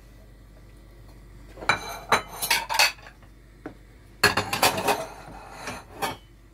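Wooden spoon stirring and knocking against a stainless steel frying pan, in two bouts of clatter: one about two seconds in and a longer one from about four seconds in.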